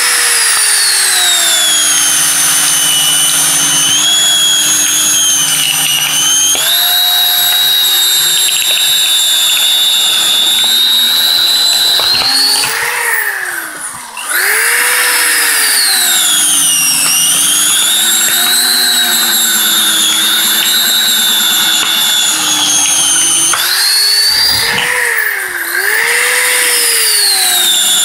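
Cordless drill driving a screw-type cone log splitter bit down into a log, splitting it: a steady high motor whine that sags in pitch several times as the cone bites under load and picks back up, with the deepest dips about halfway through and again near the end.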